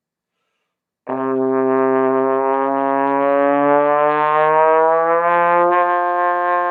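Trombone played as one long sustained note while the slide is drawn in, the pitch gliding slowly upward. The note starts about a second in.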